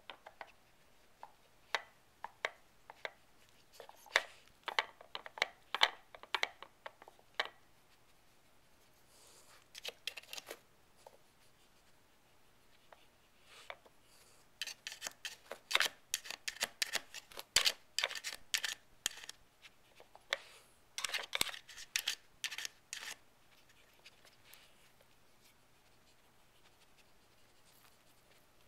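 Shiba Inu working a wooden Dog Brick treat puzzle: irregular bursts of quick scratches, clicks and scrapes as claws and nose knock and push the black plastic lids on the board, with short pauses between bursts.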